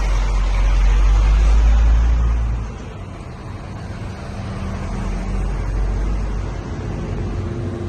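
A fire truck's engine gives a heavy low rumble as it drives slowly past close by. About three seconds in the rumble drops away, leaving the quieter steady hum of the cars following it.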